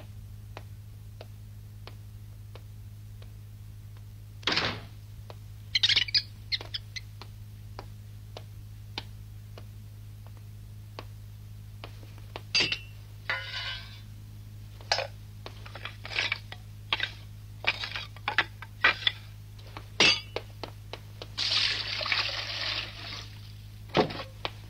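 Scattered knocks, clinks and clunks as a brick kitchen stove is worked and lit with embers, over a steady low hum, with a hiss lasting about two seconds near the end.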